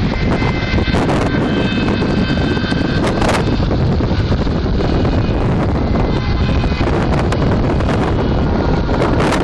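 Steady road and wind noise of a car driving at speed, heard from inside the car, with a few sharp clicks about one and three seconds in.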